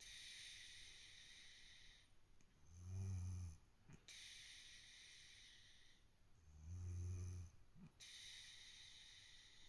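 A kitten sound asleep and snoring softly. Low buzzing snores come twice, about four seconds apart, with hissy breaths between them.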